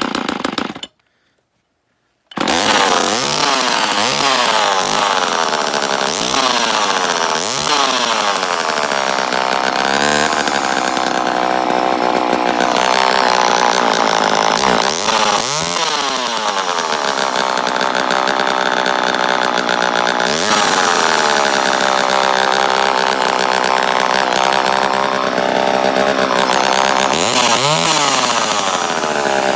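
Homelite Super EZ Automatic two-stroke chainsaw running, its engine revved up and dropping back again and again. The sound cuts out completely for about a second and a half near the start.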